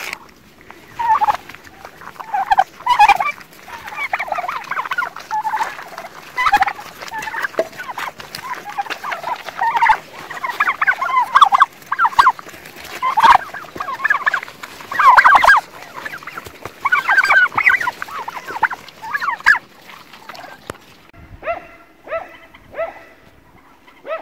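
Fowl calling over and over in loud, rattling, gobble-like bursts, one every second or two. About three seconds before the end the calls stop, and a few shorter, even-pitched sounds follow.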